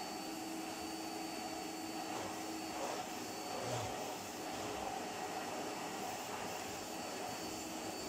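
Hitachi CV-95N commercial tub vacuum cleaner's 800-watt motor running steadily: a constant rush of air with a steady whine over it.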